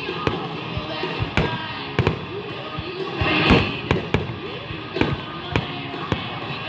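Fireworks going off in a rapid, irregular series of sharp bangs, about a dozen in a few seconds, over rock music played on loudspeakers. A brief hissing swell comes about halfway through.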